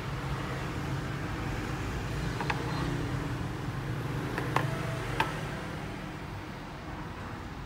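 Steady low hum with three light plastic clicks, as a white plastic diffuser frame is lifted off a Radion XR15 LED aquarium light and set back on it.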